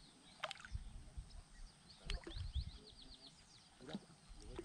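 Faint splashing and light knocks as a hand lowers a small bass into the water beside a kayak. About two seconds in, a bird gives a quick trill of short falling notes.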